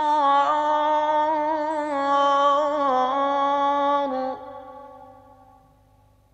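A man's voice in melodic Quranic recitation, drawing out the last word of a verse ("ansar") in long held notes with small ornaments. The pitch steps down about three seconds in. The voice stops a little after four seconds and its echo fades away.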